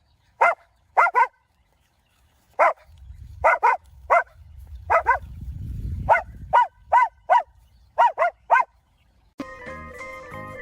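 A dog barking in quick clusters of two or three short barks, about seventeen in all. Music starts near the end.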